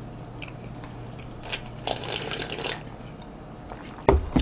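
Slurping cold naengmyeon noodles and kimchi broth from a bowl held at the mouth, with a longer wet slurp about two seconds in. Near the end come two sharp knocks, the bowl set down on the table.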